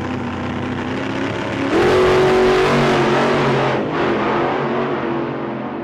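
A car engine running, its note rising sharply and getting louder about two seconds in and holding there, with a brief dip about four seconds in.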